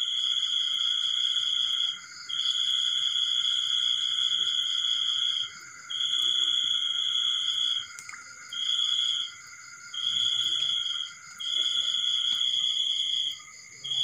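Night chorus of small frogs and insects: a loud, high trill repeats in bouts of one to three seconds with short breaks, over several steady, high, continuous calls.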